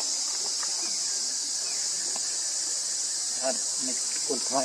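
Steady, high-pitched insect chorus that runs on without a break.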